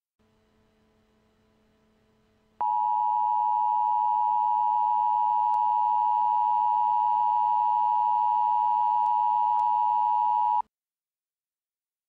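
Emergency Alert System attention signal: a loud, steady electronic tone just under 1 kHz, starting a few seconds in and cutting off sharply after about eight seconds. A faint low hum comes before it.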